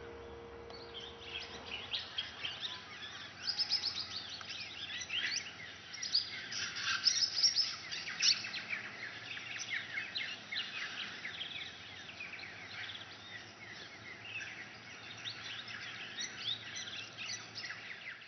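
A flock of swift parrots calling: many short, high, rapid chirps overlapping into a continuous chatter, busiest in the first half.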